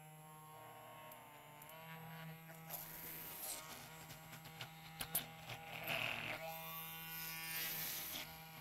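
Electric stick (immersion) blender running steadily in a glass bowl, blending thick soy milk curds with sugar and coconut oil, with a few sharp clicks about five seconds in.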